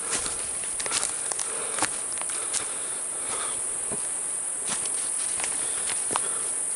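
Steady high-pitched insect trill, with scattered crunches and snaps of footsteps on the forest floor about once a second.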